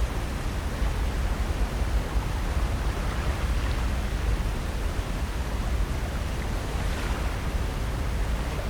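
Steady noise of ocean surf and wind along the shore, with a strong deep rumble and no distinct breaks or events.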